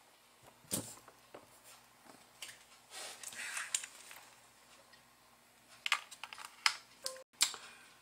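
Scattered light clicks, taps and rustles of hands handling a small plastic-and-circuit-board robot car kit, coming a few at a time with quiet gaps between.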